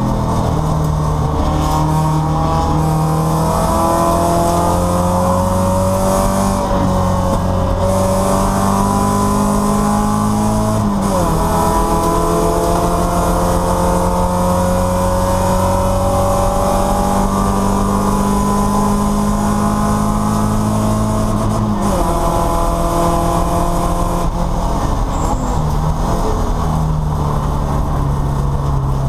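Porsche 944 race car's four-cylinder engine heard from inside the cockpit, running hard under load with its pitch climbing slowly, then dropping sharply at a gear change about eleven seconds in. It holds a near-steady pitch until a second drop about twenty-two seconds in, and builds again near the end.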